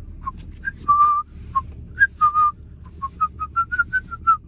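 A man whistling a tune through pursed lips: single clear notes, a couple held longer in the first half, then a quicker run of short notes edging upward in pitch. The steady low hum of a car cabin runs underneath.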